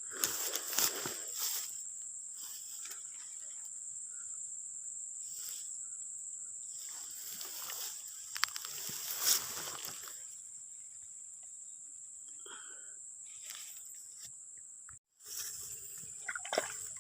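Outdoor ambience by the water: a steady high-pitched insect drone, with scattered rustles and light splashing.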